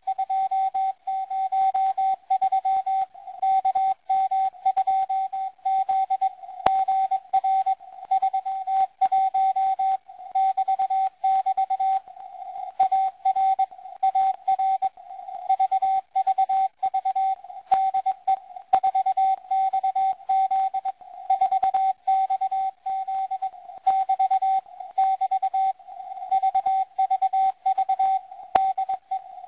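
Morse code from the 4XZ CW number station, received on shortwave through a web-based receiver: a single steady beep keyed on and off in quick dots and dashes, sending five-letter code groups.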